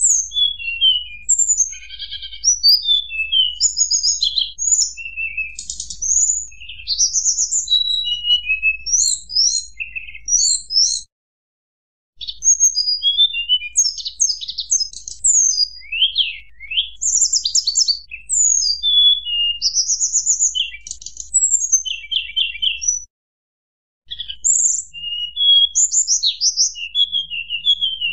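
Tledekan gunung song from a lure recording: fast, varied high chirps, whistles and trills in three bouts, each broken off by about a second of silence, over a faint low hum.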